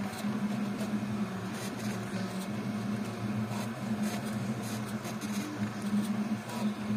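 Voron 3D printer running a print: a steady mechanical hum of its fans and stepper motors, with a low buzzing tone that fades and returns as the toolhead moves, and faint ticks.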